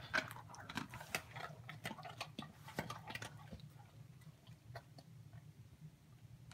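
Dog crunching a hard treat just taken from a hand: a run of short, crisp crunching clicks that thin out after about three and a half seconds.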